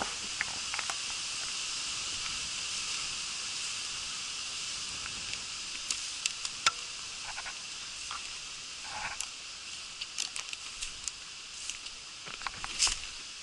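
Footsteps rustling and crackling through dry fallen leaves in uneven bursts, over a steady high hiss of wind in the trees.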